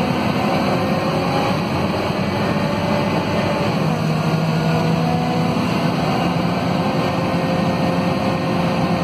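Scania DC9 five-cylinder diesel engine of a Scania K230UB city bus running steadily, heard from inside the passenger cabin near the rear-mounted engine. Its pitch shifts about four seconds in.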